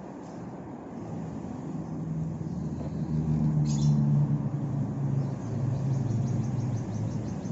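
Engine hum of a passing motor vehicle, swelling to its loudest about four seconds in and then easing off. Faint high chirps sound over it, one near the middle and several near the end.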